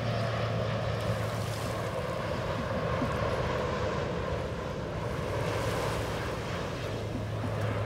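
Jet airliner passing low overhead on its landing approach: a steady jet engine noise that holds throughout.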